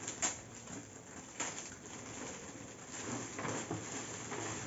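Shiny foil gift wrap crinkling and tearing as it is pulled off a cardboard toy box: a few sharp crackles in the first two seconds, then steadier crinkling from about three seconds in, growing louder.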